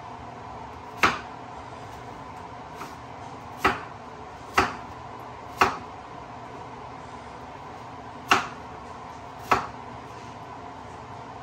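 Kitchen knife chopping peeled pumpkin on a wooden cutting board: six sharp knocks of the blade striking the board at uneven intervals, over a steady background hum.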